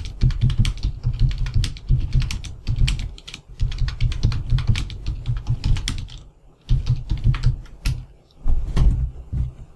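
Typing on a computer keyboard: rapid runs of keystrokes, broken by two short pauses, one about six seconds in and one near the end.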